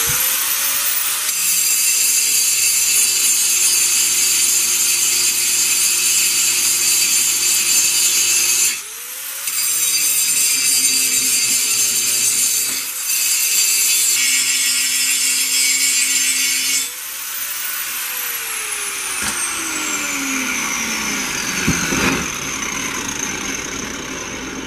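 Angle grinder grinding welded sheet steel, its high-pitched whine loud and rough as the disc bites the metal. The whine dips and picks up again about nine seconds in and once more around thirteen seconds. Near the end the grinder is switched off and winds down in a long falling whine.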